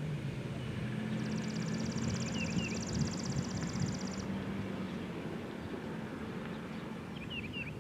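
Outdoor background with a steady low hum like a distant engine or traffic. A high, rapid trill starts about a second in and lasts about three seconds, and short bird chirps come twice.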